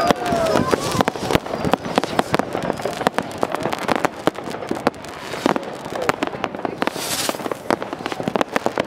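New Year's fireworks going off all around: a dense, irregular run of firecracker and rocket bangs, with wavering whistles in the first second and a brief hiss about seven seconds in.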